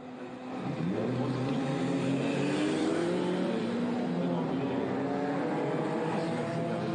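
Pre-war racing car engines running hard as the cars accelerate past, the engine note climbing in pitch, dropping back once about three seconds in and climbing again.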